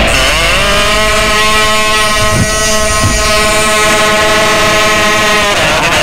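Kazoo buzzing one long held note, sliding into pitch at the start and cutting off about five and a half seconds in, followed by a wavering, wobbling note near the end.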